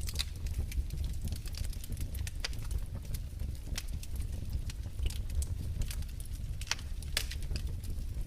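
Wood fire in a fireplace crackling, with irregular sharp pops and snaps over a low steady rumble of the flames.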